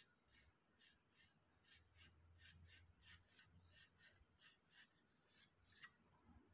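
Faint, regular scratchy strokes, about two or three a second: the rusted steel blade of a handsaw rubbing in the slot of its wooden handle as it is worked back and forth and pulled out. A sharper click comes near the end as the blade comes free.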